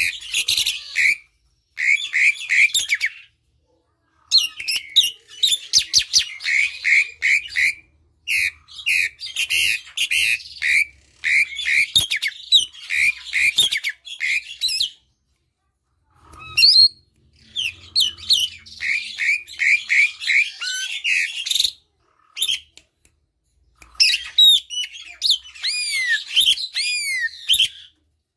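Javan pied starling (jalak suren) singing in loud, chattering bouts separated by short pauses: harsh, scratchy notes and quick runs of short falling notes, with clear arching whistles near the end.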